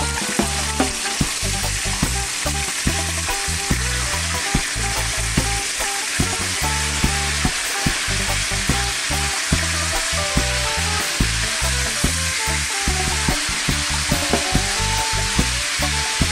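Chicken pieces sizzling steadily in hot oil in a pan, with frequent short clicks of metal tongs against the pan as the pieces are turned. Background music with a steady low beat plays underneath.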